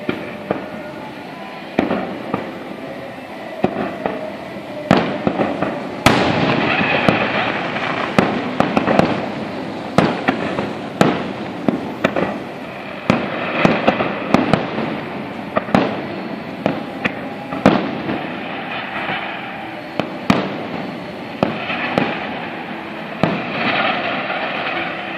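Fireworks display going off: a string of sharp bangs and crackling, becoming dense about six seconds in.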